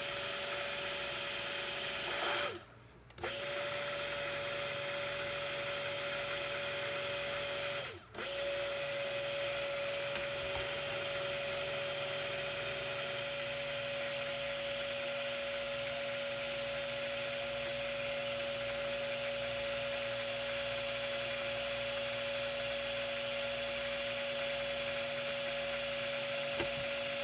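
Immersion stick blender running steadily in raw soap batter, mixing lye solution and oils toward trace. It cuts out twice: for most of a second about two and a half seconds in, and for a moment at about eight seconds.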